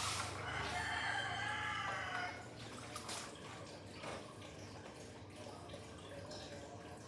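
A rooster crowing: one long drawn-out call that ends about two seconds in. Faint dripping water and small clicks follow.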